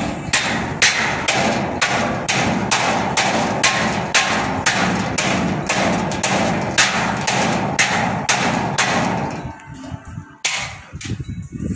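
Hammer blows on a rusty steel roof frame, about two strikes a second, stopping near the end. The blows are knocking the welded steel truss apart. Background music plays underneath.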